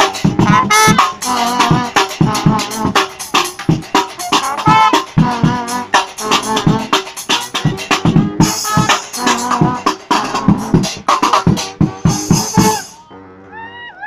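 Live funk brass band playing an up-tempo number: horns over a drum kit keeping a driving beat. The music stops with a final hit about thirteen seconds in.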